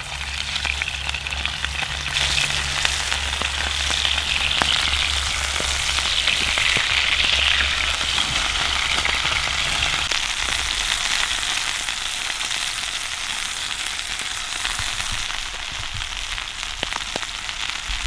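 Venison steaks searing in hot oil in a cast-iron skillet over campfire coals: a steady, loud sizzle with scattered small pops, starting as the meat goes in and easing slightly after about ten seconds. The oil is hot enough for a hard sear.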